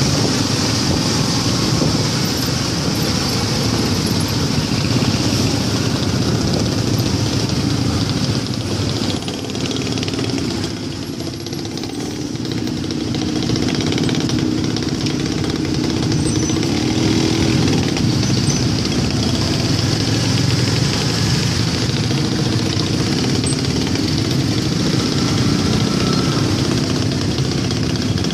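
Scooter and motorcycle engines running in dense, slow-moving traffic, heard up close from the seat of a scooter. The noise dips briefly about ten seconds in.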